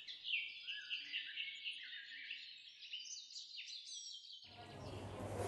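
Birds chirping: many short, quick chirps. About four and a half seconds in they stop, and a steady background noise with a low hum begins.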